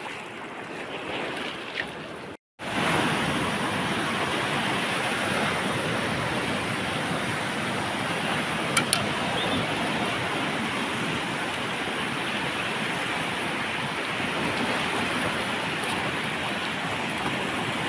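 Sea surf breaking and washing onto the shore, a steady rushing wash that gets louder after a short break about two and a half seconds in. Two brief clicks near the middle.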